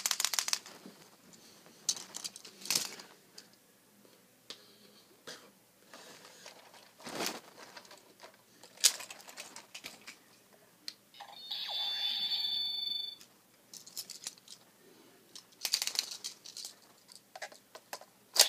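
Plastic toy packaging torn and crinkled, with sharp clicks and rattles as a Kamen Rider Build Fullbottle and the Build Driver toy belt are handled. About eleven seconds in, a steady electronic tone sounds for about two seconds.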